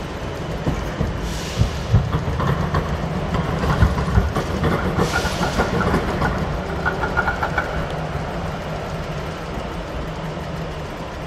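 Trams rolling over street tram tracks: steel wheels clattering and knocking on the rails, busiest in the first half. Two short hisses come about a second and a half and five seconds in, with faint high squeals in between and after.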